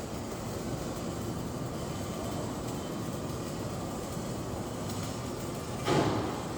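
Steady background din of a busy exhibition hall, with a short louder thump about six seconds in.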